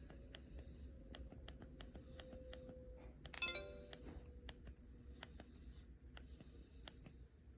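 Faint clicking of a Samsung A640 phone's keypad buttons, a couple of presses a second, while the ringtone list is stepped through. A short electronic chime sounds once about three and a half seconds in.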